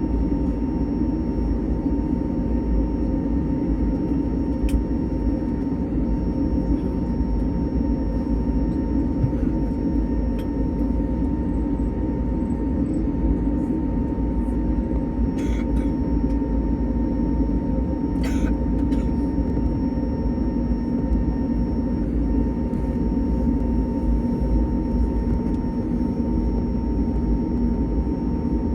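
Steady cabin noise inside an Airbus A321neo after landing: a low, even hum of the engines and cabin air with a faint constant tone, and a couple of short clicks a little past halfway.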